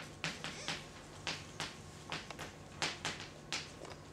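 Chalk writing on a blackboard: a quick, uneven string of short taps and scratches, a few a second, as letters are chalked, over a faint steady room hum.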